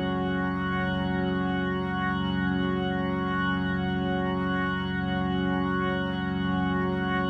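Background music: a sustained organ-like chord held steadily.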